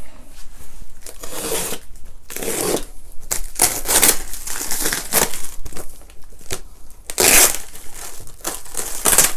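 Clear plastic wrapping on a cardboard box crinkling and tearing as it is cut and pulled open with a utility knife, in irregular rustling bursts, the loudest near the end.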